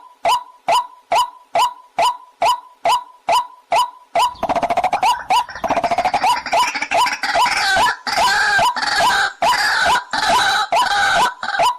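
Recorded call of a waterhen (jal murgi) played as a hunting lure. A short, clipped note repeats about twice a second, breaks about four seconds in into a dense, harsh chattering chorus for some seven seconds, and near the end returns to the steady repeated note.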